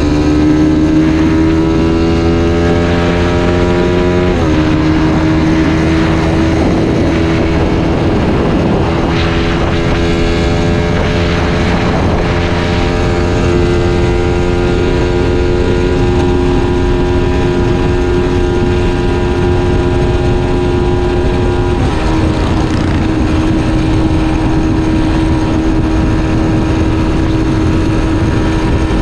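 Suzuki Satria FU 150 fuel-injected single-cylinder engine under way. It revs up, drops in pitch as it shifts up about four seconds in, then runs at a fairly steady speed, with another small drop in pitch from a shift around 22 seconds in. Wind noise runs underneath.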